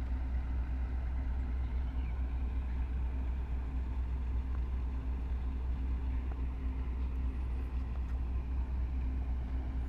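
Steady low drone of a tugboat's diesel engine working hard to tow a grounded coal barge off the shallows.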